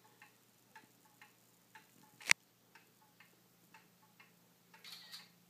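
Clock ticking steadily at about two ticks a second, with a single louder sharp click about two seconds in.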